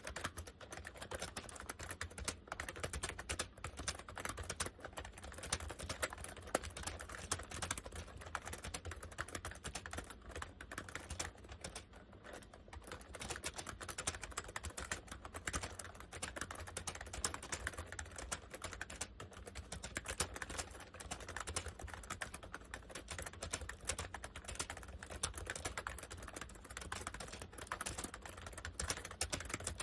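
Honeywell 101WN/WT keyboard being typed on at a steady pace: a continuous run of keystroke clicks and clacks, easing off briefly near the middle.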